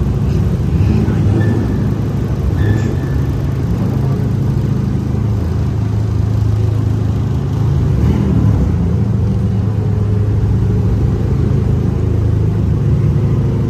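A car's engine running steadily with a low drone. It rises slightly about eight seconds in.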